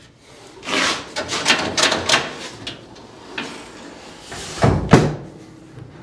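Clattering and scraping as parts are handled in the trunk, then the 1967 Camaro's trunk lid is shut with a loud double thump about five seconds in as it latches.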